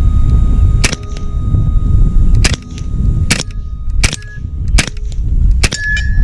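Hatsan Invader .22 semi-auto PCP air rifle firing six shots, roughly one a second and unevenly spaced, with wind rumbling on the microphone.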